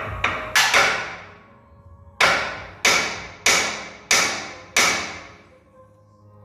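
Hammer blows on the steel rear suspension of a Chevelle chassis: a few quick knocks, then five evenly spaced ringing strikes about two-thirds of a second apart.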